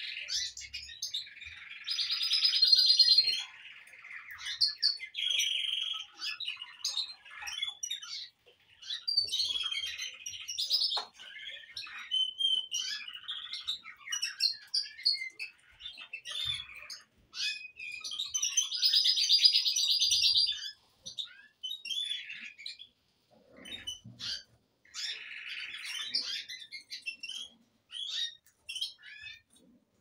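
Caged canaries singing: a continuous run of chirps and warbling song, with several long rolling trills that stand out as the loudest passages.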